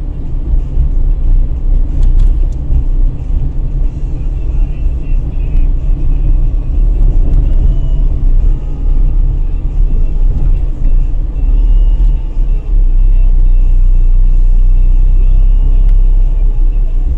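A car driving at low speed: a heavy, low rumble of engine and road noise. The rumble becomes steadier and slightly louder about three quarters of the way through.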